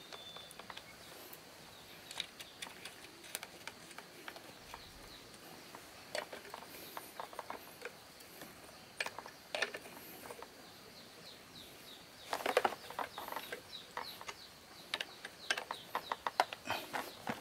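Irregular light clicks and knocks, with a denser clatter about twelve seconds in and again near the end.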